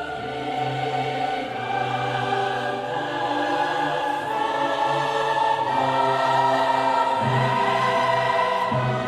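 Choral music with voices holding long sustained notes over a low held part.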